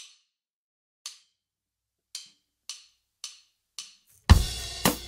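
A count-in of six sharp clicks, two slow then four twice as fast. About four seconds in, a drum kit and steelband engine-room percussion come in together on a loud downbeat with bass drum and cymbal.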